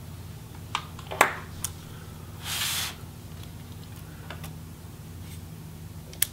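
A few light clicks and taps from handling a laptop palm rest and its cables with a small screwdriver, the sharpest about a second in, with a brief scraping hiss about two and a half seconds in.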